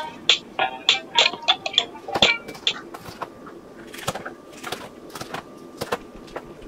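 Kitchen knife chopping habanero pepper on a cutting board: irregular sharp taps of the blade striking the board, a few per second. In the first few seconds there is background music with short plucked notes, which stops about three seconds in.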